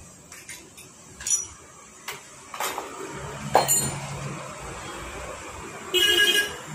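Metal motorcycle front-fork parts and hand tools clinking together as they are handled, a scattering of sharp clinks with short ringing. Near the end a loud pitched tone sounds for about half a second.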